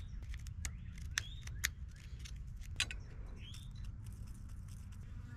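A few light clicks and scratches from handling a plastic and metal mounting plate against brick and marking the brick with a pencil, over a low steady rumble.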